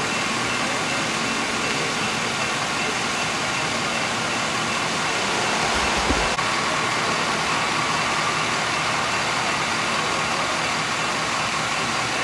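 Steady running of idling vehicle engines with road noise, a few faint steady tones over an even hiss. A brief low thump about six seconds in.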